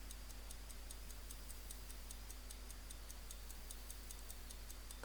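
Invar C.M.I Galonne pocket watch's 15-jewel mechanical movement ticking steadily with its case open, faint and even at about five ticks a second.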